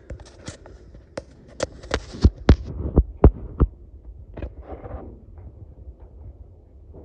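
Irregular sharp clicks and knocks, about ten in the first four seconds, the loudest with a low thump, over a low rumble.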